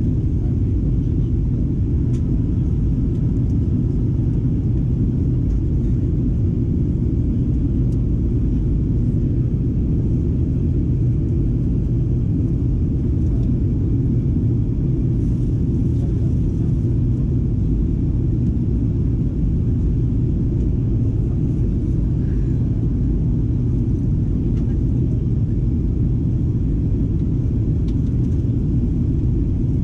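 Cabin noise inside a Boeing 737-800 in flight: a steady low rumble from the engines and the air rushing past the fuselage.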